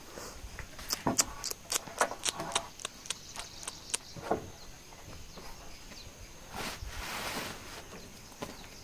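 Loose wooden planks knocking and clattering as they are lifted and set down on a dirt floor, a string of light knocks over the first four seconds, then a woven plastic floor mat rustling for about a second as it is dragged and smoothed out.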